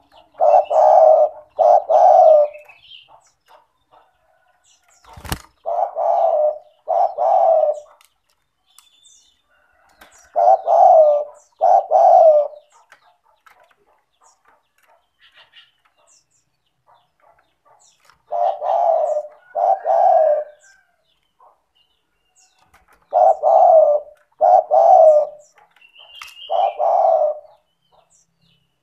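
Spotted dove (tekukur) cooing loudly. Its low notes come mostly in pairs, and the phrase repeats about every five seconds, six times. A single sharp click sounds about five seconds in, and faint high chirps of small birds run underneath.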